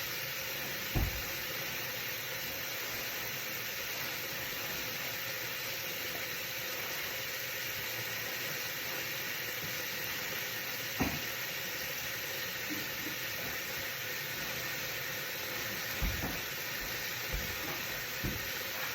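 Tap water running steadily into a sink, warming up for a bird's bath: an even hiss, with a few light knocks now and then.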